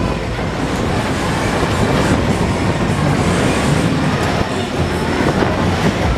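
Disco Train fairground ride cars running fast around their track: a steady rumble and clatter of the wheels on the rails.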